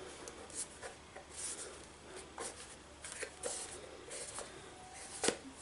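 Faint scratching, rubbing and small taps of hands handling a small sealed cardboard product box, with a sharper click about five seconds in.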